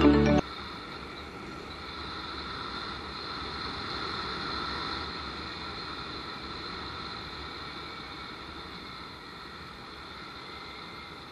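Background music cuts off half a second in. After it comes the steady rush of air and a faint engine hum from a paramotor gliding low toward landing, slowly fading.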